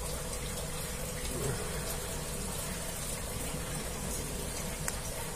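Steady background noise with a low hum running underneath, and a faint click or two.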